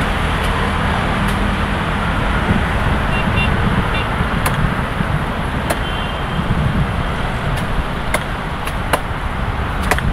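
Steady road traffic noise from the street below, with a scatter of sharp knocks in the second half as a machete hacks at the base of a royal palm frond stalk.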